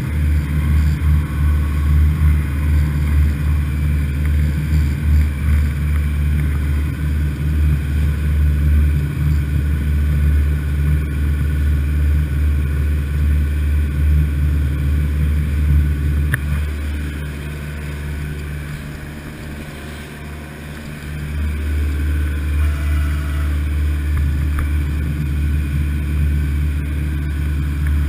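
Motorboat engine running steadily under way, heard from inside the wheelhouse with the rush of hull and water noise; the engine drone eases off for a few seconds about two-thirds of the way through, then comes back up.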